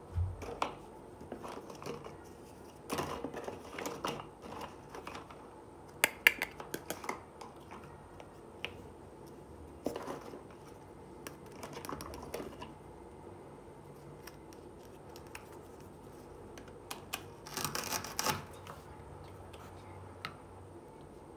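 Small plastic toy dishes and toy food pieces being handled and set down, making light plastic clicks and knocks in scattered clusters with pauses between.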